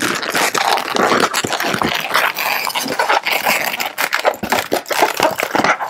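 Latex modelling balloons squeaking and rubbing against each other in a continuous run as they are twisted and a small bubble is wrapped into the tops of two others.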